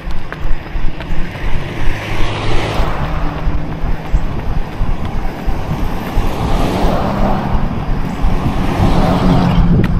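Cars passing close by on a road, their tyre and engine noise swelling and fading about three times, over a runner's rhythmic footsteps that are clearest in the first two seconds.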